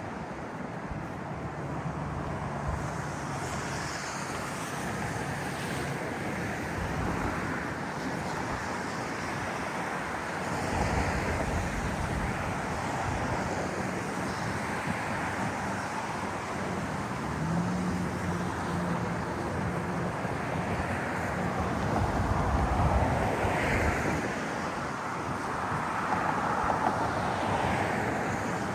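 Steady rushing outdoor city noise of traffic and wind, swelling a few times.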